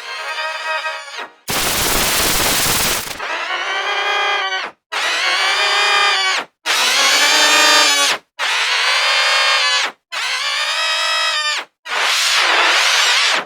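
A cartoon character's scream, retuned to notes of G major and played as a string of about eight held screams, each a second or so long, split by short silent gaps. The second one, about 1.5 s in, is a harsh noisy shriek with no clear pitch, and the last wavers up and down in pitch.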